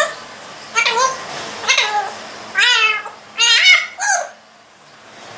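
African grey parrot imitating a cat's meow: a run of about six short meow calls, roughly one a second, each bending down in pitch.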